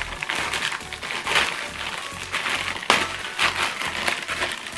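Clear plastic packet crinkling and rustling as it is handled and torn open, with a sharp crack about three seconds in, over background music.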